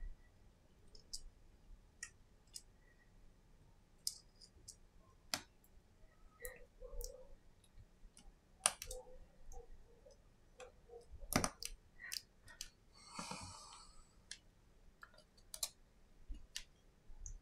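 Faint, scattered small clicks and taps of fingers handling an opened iPhone SE and its display assembly, with a brief rustle about thirteen seconds in.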